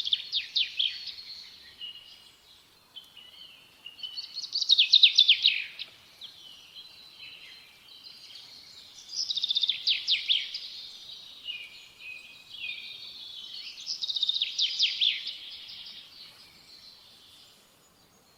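Small songbird chirping and twittering: bursts of rapid, high chirps come about every five seconds, with softer twittering in between.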